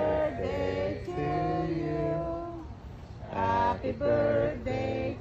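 Singing: a melody with long held notes in two matching phrases, with a short break about three seconds in.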